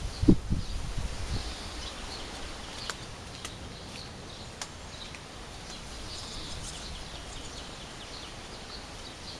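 Barn swallows twittering: a run of short high chirps from birds perched in a tree, with a few sharp clicks in the middle. A brief low thump about a quarter second in is the loudest sound.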